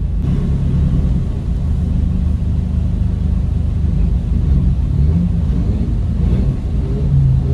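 Diesel drag car's engine idling steadily, heard from inside the cabin while it waits in the staging line.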